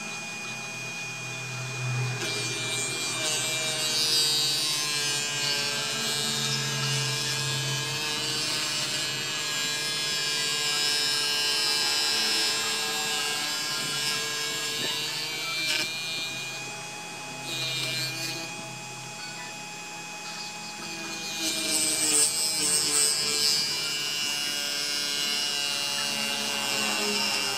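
A 775 DC motor spins a homemade mini lathe with a steady whine that wavers slightly, while the cutting tool, fed in by hand-turned cross-slide wheels, scrapes the turning workpiece. The scraping grows louder about three-quarters of the way through.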